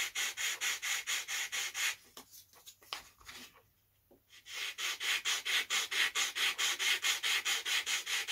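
Balsa wood being sanded by hand with quick back-and-forth strokes, about four or five a second, a rasping rub. The strokes stop for about two seconds in the middle, then carry on.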